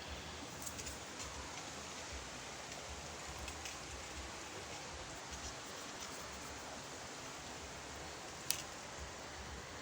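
Steady, even outdoor hiss, with a single sharp click about eight and a half seconds in.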